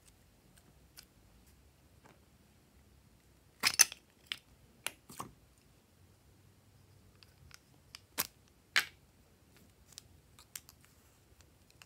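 Handling noise from small hard objects: a quick cluster of sharp clicks and taps about four seconds in, then two louder clicks near eight seconds, with a few faint ticks after.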